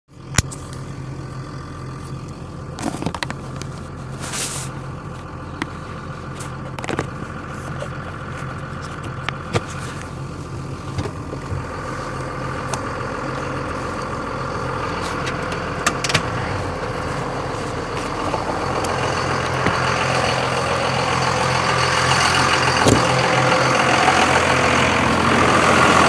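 Car driving, its engine and road noise heard from inside the cabin as a steady low hum that grows gradually louder over the second half. A few sharp clicks and knocks stand out over it.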